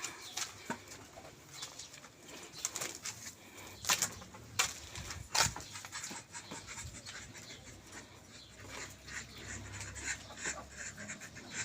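Rooftop poultry and birds calling: many short high chirps, with a few sharp clicks or knocks about four to five and a half seconds in, and a quick run of chirps near the end.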